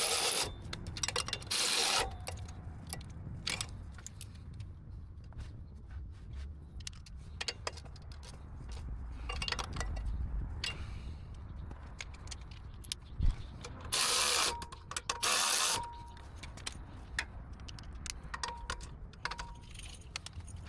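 Exhaust bolts being tightened with hand tools, metal clicking and ratcheting, with four short whirring bursts of a power tool running down the bolts: two near the start and two close together past the middle.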